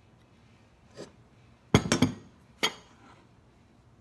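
A few sharp knocks and clinks against a glass mixing bowl as a plastic cutting board and a kitchen knife are brought over it: a light tap about a second in, three quick loud knocks near the middle, then one more.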